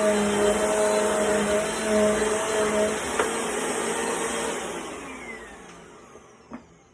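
Bissell Power Force Compact bagless vacuum running steadily, then switched off with a click about three seconds in. Its motor whine falls in pitch as it spins down and fades away.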